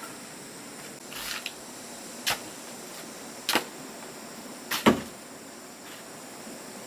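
A short scraping sound about a second in, then three sharp knocks roughly a second apart, the last the loudest, over a steady hiss.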